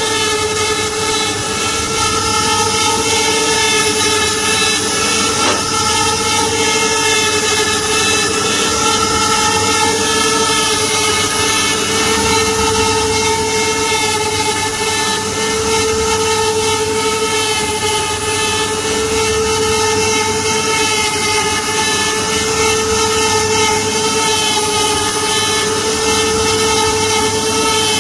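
Multi-head CNC wood router running, its router spindle motors giving a steady whine as the bits carve relief patterns into wooden panels.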